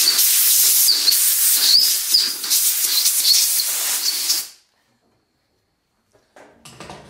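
Compressed-air blow gun hissing loudly as it blasts chips and debris out of freshly tapped blind bolt holes in a cast-iron compressor crankcase, wavering as the nozzle moves from hole to hole. It cuts off abruptly about four and a half seconds in, and a few faint knocks follow near the end.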